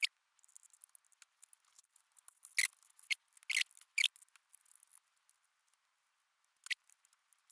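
Pry tools and a metal pick scraping and clicking against a first-generation iPad's battery and aluminium back case as the battery is worked loose from its alcohol-soaked adhesive. There are light scratching sounds throughout, a cluster of louder sharp scrapes about two to four seconds in, and one more near the end.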